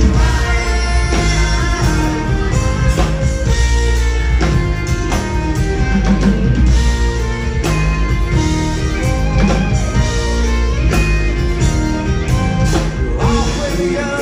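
Live rock band playing loudly, with electric guitar over a steady bass and drums.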